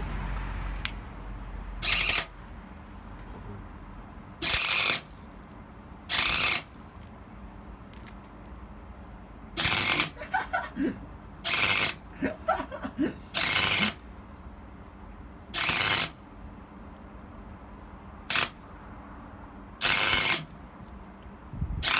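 MIG welder arc crackling in short bursts: about nine brief tack or spot welds, each under a second, roughly two seconds apart, laid on scrap sheet steel as practice.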